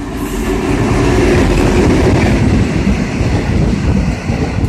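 V/Line N-class diesel-electric locomotive and its H-set carriages passing at speed without stopping, engine and wheels on the rails growing louder over the first second or two and staying loud.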